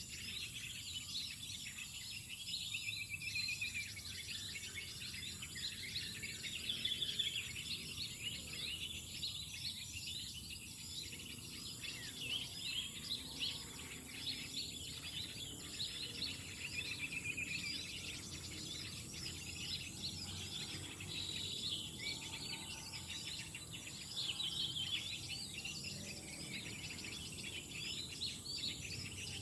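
Many small birds chirping and calling over one another in a busy, continuous chorus of short high notes.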